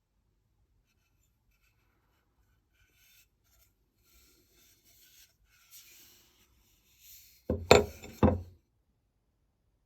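Faint rubbing and scraping on the hatchet in the workshop, then two loud knocks close together near the end, like the tool being set down on a workbench.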